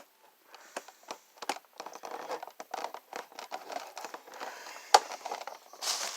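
Packaging being handled and opened: irregular crackling and crinkling with scattered clicks, and a sharp snap about five seconds in.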